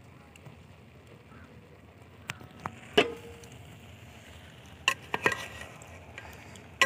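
A metal spoon turning cooked biryani rice in a metal pot: scattered clinks and scrapes over a faint steady hiss. The loudest is a ringing clink of metal on the pot about three seconds in, with a quicker run of clinks near the end.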